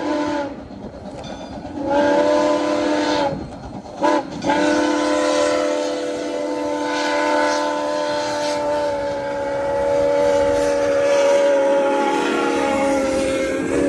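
Soo Line 1003's steam whistle sounding the crossing signal as the locomotive approaches: a blast, a short toot, then a long blast held until the engine passes, its several notes sounding together as a chord. The notes dip slightly in pitch near the end as the locomotive goes by.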